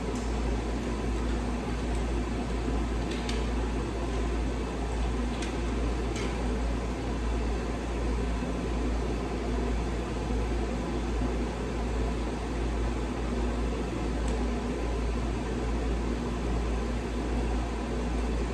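Steady low hum and hiss from a running machine such as a fan or motor, with a few faint clicks.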